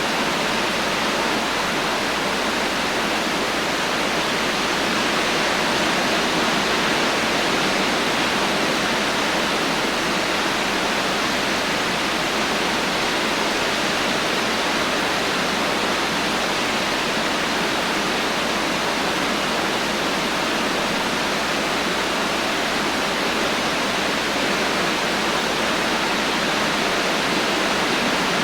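Heavy rain falling steadily, with no thunder: an even, unbroken hiss.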